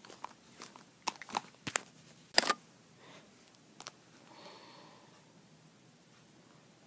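Handling noise from dolls and bedding being moved close to the microphone: a few quick knocks and rustles in the first half, the loudest about two and a half seconds in.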